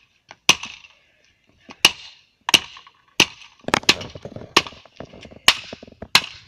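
Hatchet blows smashing a plastic toy gun against asphalt: about ten sharp cracks at uneven intervals, closer together in the middle, as the plastic breaks apart.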